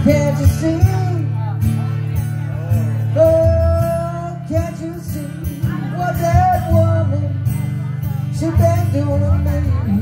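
Live acoustic duo: a man sings with held, gently bending notes over a strummed acoustic guitar.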